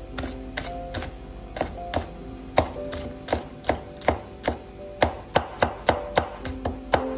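Chinese cleaver mincing red and green chili peppers on a wooden cutting board: a steady run of sharp chopping knocks, about two or three a second.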